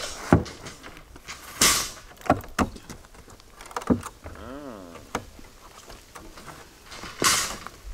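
Hand work at a wooden concrete form, with pliers and wire or line being handled: a few sharp clicks and knocks, two short scrapes, and a brief squeak that rises and falls in pitch about halfway through.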